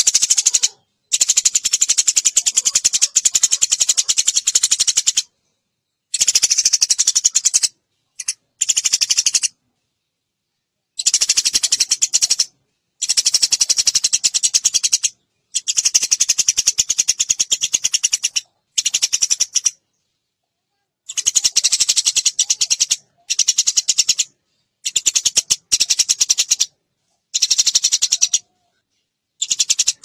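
Eurasian tree sparrow chattering: fast runs of high, rattling chirps in bursts of one to four seconds, broken by short silent gaps.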